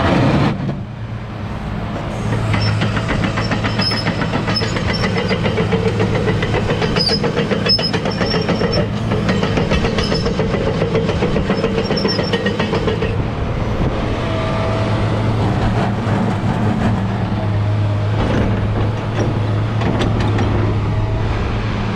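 Tracked excavator's diesel engine running steadily, with a rapid metallic clatter and high squeaks from the steel tracks for about ten seconds early on, then the engine running alone.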